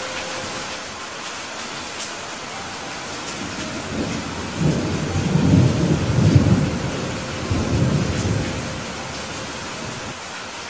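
Steady rain hiss with a low rumble of thunder that builds about four seconds in, peaks in the middle, swells once more and fades away.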